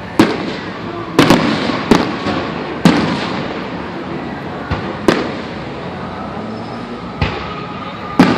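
Fireworks exploding: about eight sharp bangs at uneven intervals, each trailing off in an echo, with crackling between them.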